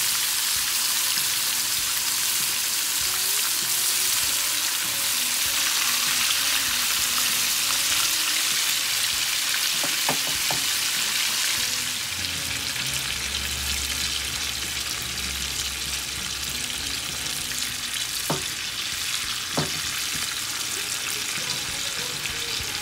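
Striped bass fillets sizzling as they fry in oil in a nonstick pan, a steady hiss that eases slightly about halfway through. A few light clicks are heard in the second half.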